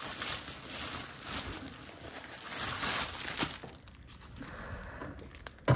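Packaging crinkling irregularly as shoes are handled and swapped on a display turntable, with a single sharp knock near the end.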